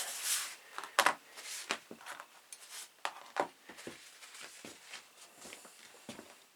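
Cloth wiping over a small Zippo pocketknife, followed by a sharp click about a second in and then scattered light clicks and taps as the knife is handled.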